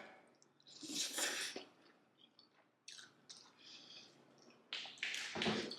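A person chewing and making wet mouth sounds while eating pasta, in several short soft bursts with quiet gaps between.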